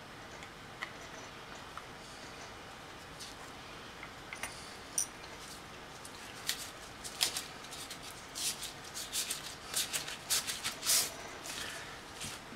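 Light clicks and crinkling as plastic-gloved hands handle a closed 2.5-inch laptop hard drive. A few isolated ticks at first, then a quick run of them over about five seconds in the second half.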